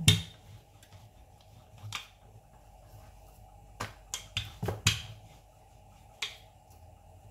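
Wooden rolling pin rolling out paratha dough on a board. A few sharp knocks of the pin against the board, the loudest at the very start and a cluster about four to five seconds in.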